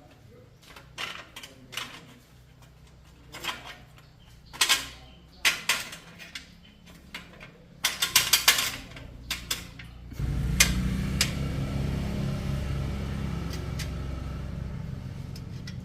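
Metal tools and bicycle parts clinking and knocking a few at a time, then about ten seconds in a machine starts with a steady hum that slowly grows quieter.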